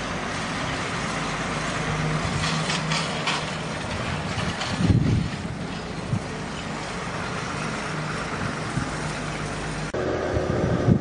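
A motor running steadily with a low hum, with a brief low rumble about five seconds in; the hum cuts off near the end.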